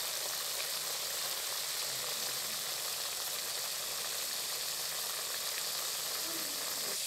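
Beef tripe sizzling steadily in a wok, its juices bubbling around the pieces: an even hiss.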